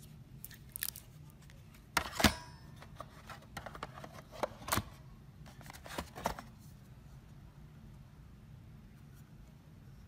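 Handling noise: a plastic video doorbell and its chime unit clicking and knocking against their cardboard box as they are put in and lifted out. The clicks are sharp and scattered, loudest about two seconds in, and they stop a little past six seconds, leaving a low steady hum.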